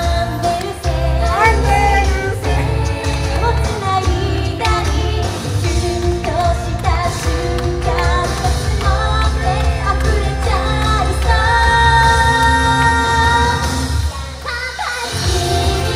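Young female idol-pop group singing live into handheld microphones over a backing track with a heavy bass beat. There is a long held note about three-quarters of the way through, and the bass drops out for a moment near the end before coming back.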